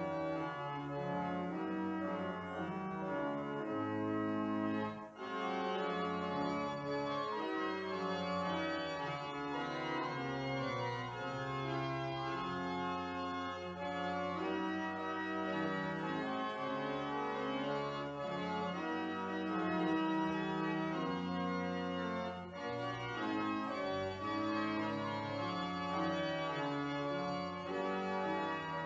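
Organ music: slow, sustained chords changing every second or so, the closing voluntary at the end of a church service.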